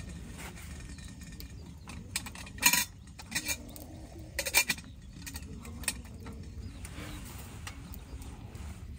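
Metal lid of a small camping kettle clinking as it is lifted off and set back on: a few sharp clinks, the loudest about three seconds and about four and a half seconds in, over a steady low rumble.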